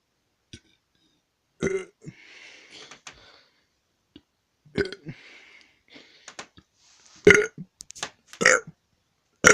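A boy burping repeatedly: a string of short burps, a few seconds apart at first and then coming quicker near the end, with faint breathy noise between them.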